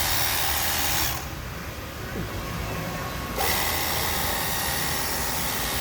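Battery-powered cordless pressure washer running, its small motor and pump whining under the hiss of the water jet. The loud spray hiss drops away about a second in and comes back about two seconds later.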